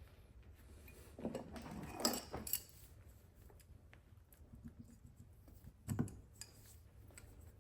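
Small metal carburetor parts and tools clinking and tapping on a workbench as a Zenith 63 updraft carburetor is unscrewed and taken apart: a cluster of light knocks about a second in, and one more near the end.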